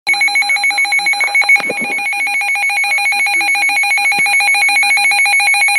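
Loud electronic alert signal of an Emergency Alert System broadcast: a rapidly pulsing, ringing warble held at a steady pitch.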